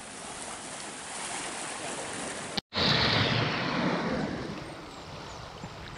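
Sea waves washing on a shore: a steady wash of surf, then after a sudden cut about halfway through, a louder wave breaking and running up the beach, fading as it draws back.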